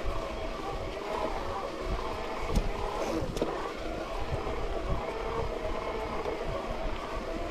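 Mountain bike ridden over a muddy trail: steady tyre and drivetrain noise with a droning hum, and knocks and rattles from the rough ground, the loudest about two and a half seconds in.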